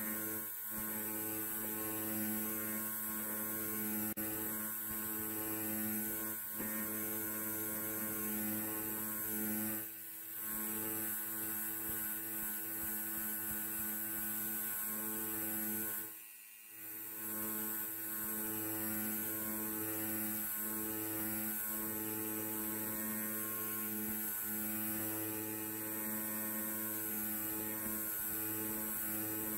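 Electric hair clipper running with a steady hum, its sound dipping briefly twice, about ten and sixteen seconds in.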